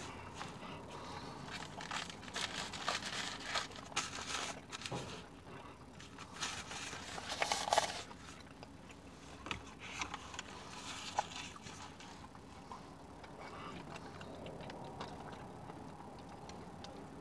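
Faint eating sounds: chewing and the crinkling rustle of a foil sandwich wrapper, with scattered small clicks and a few louder crackles.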